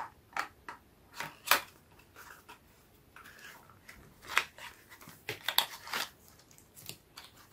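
Hands opening a small cardboard box and handling its contents: irregular short taps, scrapes and clicks of cardboard, with quiet gaps between them.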